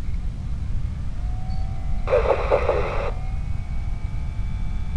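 Aviation-band radio receiver: a brief, garbled transmission about two seconds in, over a steady low rumble of static, with faint steady whistle tones around it.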